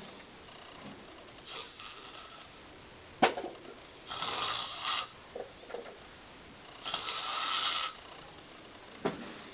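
A person snoring in slow, regular breaths: a faint one, then two strong snores about three seconds apart. There is a single sharp click about three seconds in.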